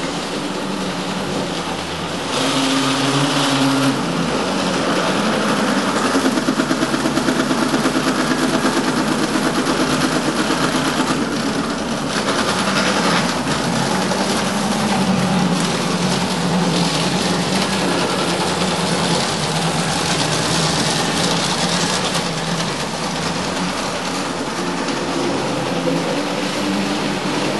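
Motorised large-scale (LGB) model tram running along the track: a continuous mechanical whir from its small electric motor and gearing, together with the wheels running on the rails. It gets louder about two seconds in.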